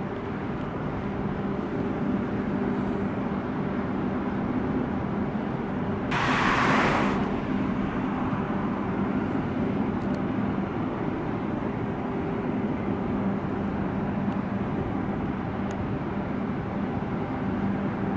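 Motorway traffic noise at a toll plaza: a steady rumble of running vehicle engines with a low hum, and a loud rushing hiss lasting about a second about six seconds in.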